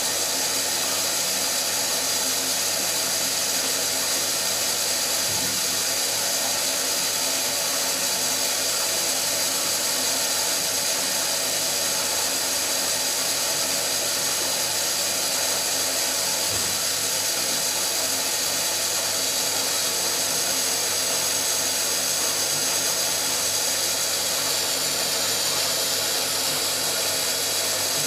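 Small Eudora Goldkind EU 340 washing machine running its wash cycle: a loud, steady motor whir that keeps going without a break.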